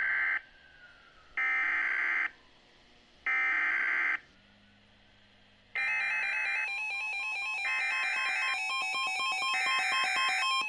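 Emergency alert broadcast data header: three short bursts of screeching digital data tones about a second apart. About six seconds in, a continuous electronic alert tone starts, with more data bursts sounding through it.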